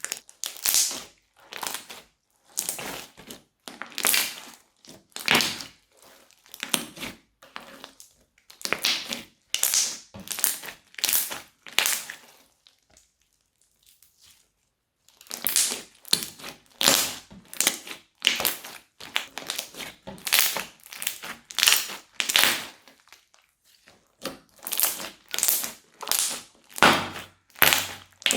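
Crunchy slime being squeezed and pressed, crackling and crunching in repeated strokes about one or two a second, with a pause of about two seconds midway.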